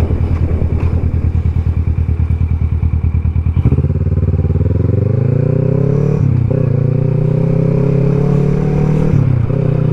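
2021 Kawasaki Versys 650's parallel-twin engine, heard from the bike. It runs at low revs with an even pulsing, then about four seconds in the revs rise as it pulls. There is a short dip in revs just after six seconds, then it holds steady, and the revs fall away near the end.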